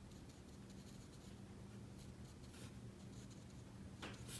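Faint, soft strokes of a damp watercolour brush on watercolour paper, with a slightly louder stroke about four seconds in, over a low steady room hum.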